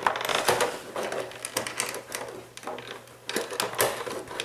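Clear plastic packaging tray crackling and clicking as small plastic toy figures are rummaged through and pulled out of it, in a run of irregular clicks and rattles.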